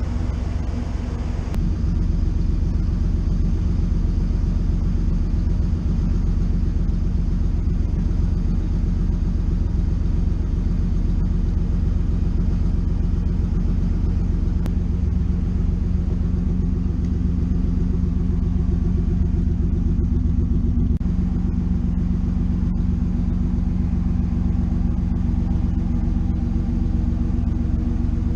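1995 Chevrolet Camaro Z28's 5.7-litre LT1 V8 idling through a Magnaflow cat-back exhaust, with stock exhaust manifolds and catalytic converter, a steady low rumble. It gets louder about a second and a half in.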